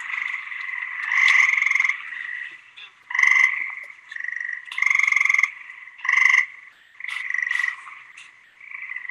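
A chorus of gray tree frogs trilling on and off. Each call is a short pulsed trill lasting about half a second to a second, and several calls follow one another and overlap.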